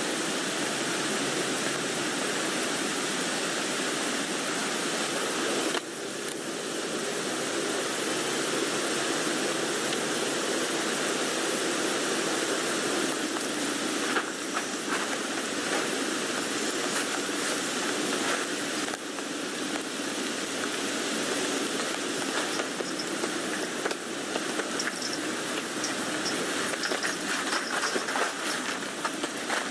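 Steady rain falling on a tent, a dense even hiss of drops on the fabric, dipping briefly about six seconds in.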